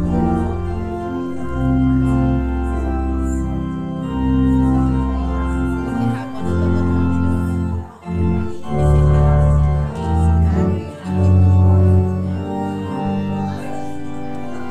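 Church organ playing slow, sustained chords over held bass notes, the chords changing every second or two, with a brief break about eight seconds in.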